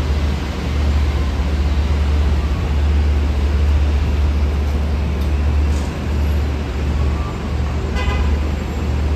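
Busy street traffic with buses and cars moving through an intersection, making a steady low rumble. A short horn toot sounds about eight seconds in.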